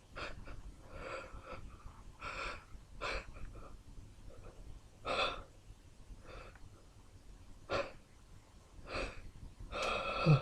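A man's short, irregular gasping breaths and sniffs between sneezes, about ten in all. Near the end a louder voiced catch of breath comes, as the next sneeze builds.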